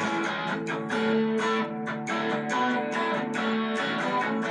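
Electric guitar strummed in a steady, quick rhythm, chords ringing between the strokes.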